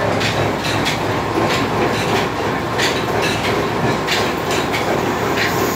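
A 20-year-old Upkar oil expeller running: a steady, loud mechanical drone with irregular metallic clacks about twice a second.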